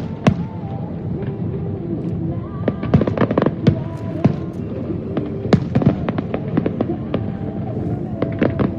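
Fireworks display: shells bursting in rapid, irregular succession, many sharp bangs over a continuous low rumble.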